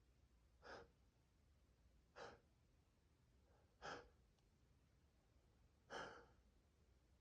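A man's stifled sneezes during a rapid sneezing fit: four short, quiet bursts of breath about one and a half to two seconds apart.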